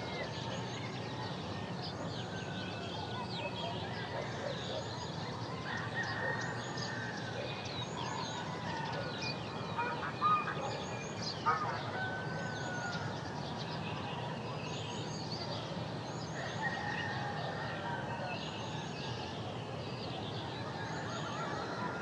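Forest ambience: many birds calling and chirping at once over a steady low background noise, with two louder calls about halfway through.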